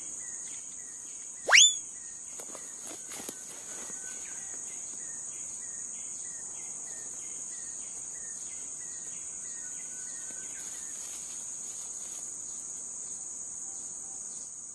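Steady, high-pitched shrilling of tropical insects, with a run of short chirps repeating about twice a second through the first ten seconds. About a second and a half in, one loud, quick rising whistle cuts through.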